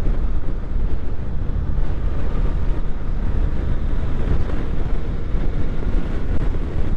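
Motorcycle on the move at a steady pace: wind rushing over the helmet microphone, with the engine running underneath.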